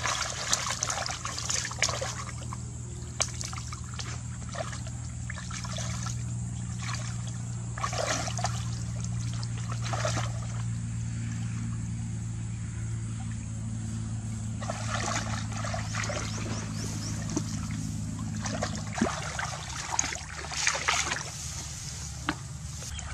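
Shallow muddy water splashing and sloshing in irregular bursts as a person wades and gropes through it by hand, over a steady low hum that stops about nineteen seconds in.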